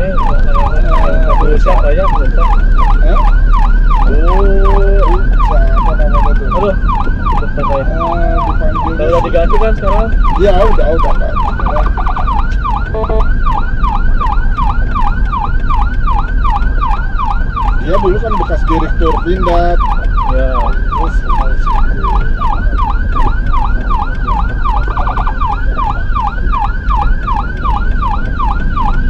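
Ambulance's electronic siren on a fast yelp, a rapid rising-and-falling wail repeating about twice a second, heard loud from inside the ambulance's cab. A lower tone cuts in several times in short bursts.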